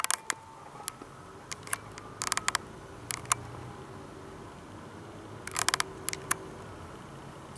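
Irregular sharp clicks and small knocks, some in quick clusters, over a low steady hum inside a slowly moving car.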